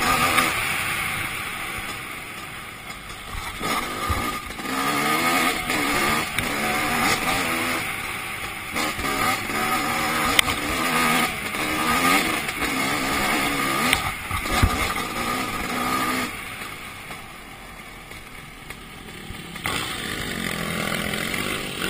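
2008 Suzuki RM250's two-stroke single-cylinder engine revving up and down as the bike is ridden hard on a dirt trail. About two-thirds of the way through it falls back to a quieter, lower note for a few seconds, then picks up again near the end. A few sharp knocks cut through.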